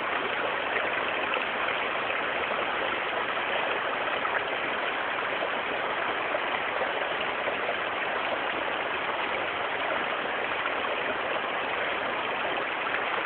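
Steady rush of river water running over rocks, unchanging throughout.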